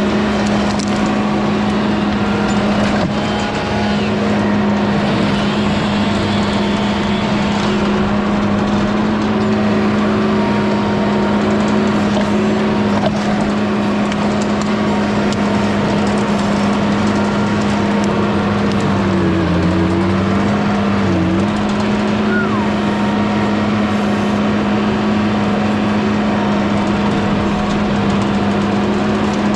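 Mini skid steer's engine running steadily at high speed, its pitch dipping briefly twice about two-thirds of the way through.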